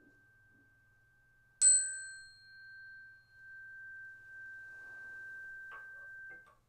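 A meditation chime struck once with a mallet about a second and a half in, ringing a clear high note that slowly fades. Light knocks of handling come near the end, and the ring stops abruptly.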